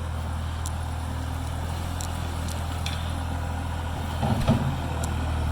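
Skid steer loader's engine running steadily, clearing and leveling the garden ground, with a brief louder patch about four seconds in.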